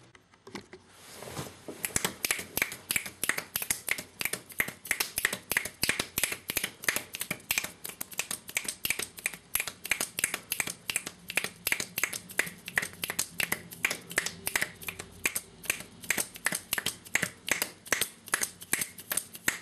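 A person making a 'click and clap' noise: a fast, steady run of sharp clicks and claps, about three a second, starting about a second and a half in and stopping near the end.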